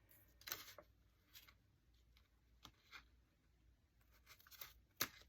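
Quiet scissor snips and paper handling while trimming a paper strip: a few faint, separate clicks spaced out, the sharpest one near the end.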